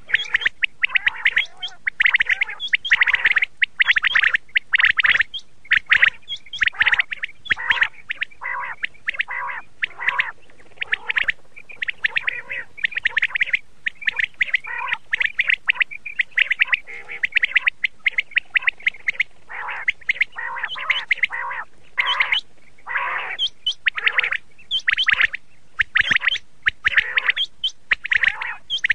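Common quail calling over and over: quick runs of short, sharp notes, one phrase after another with only brief gaps.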